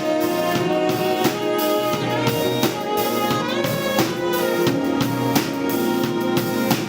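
Live soul-jazz band playing between sung lines: a drum kit keeps a steady groove with kick and snare under held chords from the band.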